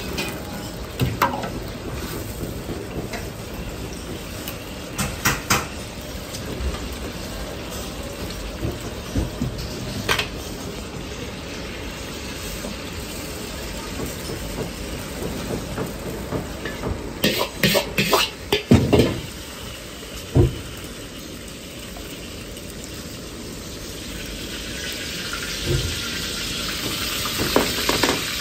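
Sliced pork belly sizzling and bubbling in a wok while a ladle stirs and knocks against the wok. About two-thirds of the way in there is a run of loud metal clatters as the wok is tipped and the pork and liquid are poured into a wire mesh strainer, then a single knock. Near the end a hiss rises as the emptied wok heats on the burner.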